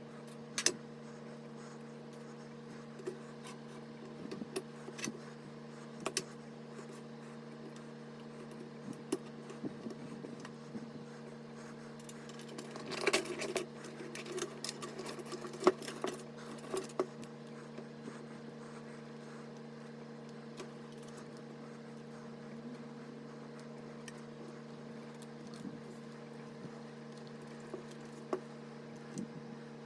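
Scattered small clicks and light clatter of computer parts being handled during a PC build, busiest around the middle, over a steady electrical hum.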